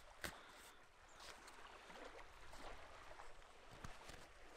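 Near silence: faint rustles and a few small clicks of cord being handled and tied around a wooden stake, the clearest click about a quarter second in, over a faint steady hiss.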